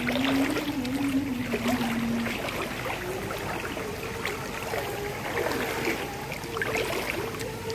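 Steady hiss and patter of heavy rain and floodwater, with a held low tone running underneath that shifts up in pitch about two seconds in.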